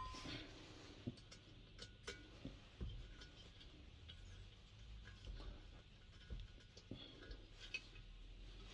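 Faint, scattered clicks and light taps of small metal parts and tools being handled while a diesel heater is taken apart.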